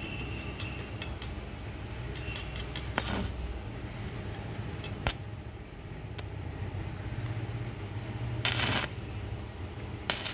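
Stick (MMA) arc welding: the electrode is struck against the steel in short bursts of arc crackle, with a sharp click or two, over a steady low hum.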